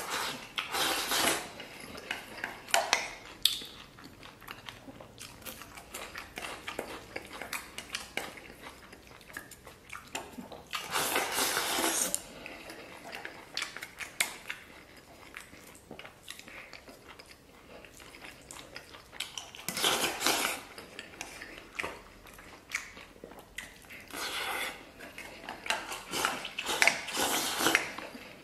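Chopsticks scraping and clicking against a stainless steel bowl as sauce-soaked rice is shovelled into the mouth, with chewing in between. There are louder stretches of scraping and slurping about a second in, around eleven seconds, around twenty seconds, and near the end.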